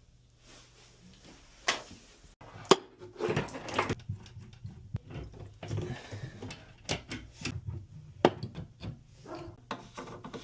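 Handling noise from objects being worked by hand: a string of irregular clicks and knocks, with short rustling stretches in between.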